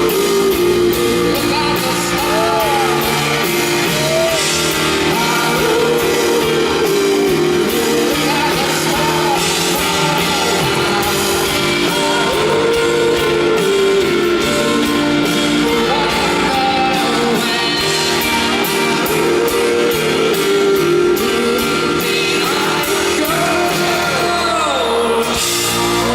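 Live pop-rock band music with wordless singing over guitar and drums, heard in a large hall; the song ends near the end.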